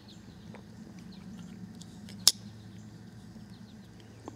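A sharp metallic click about halfway through and a smaller one near the end: the blades of a Case trapper slipjoint pocketknife snapping open against the backspring. A faint steady hum and faint chirps sit underneath.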